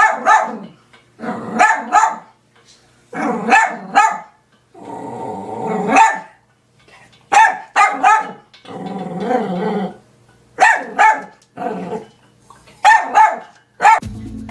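Small dog barking at a cat in quick bursts of two to four yaps, with low growls in between.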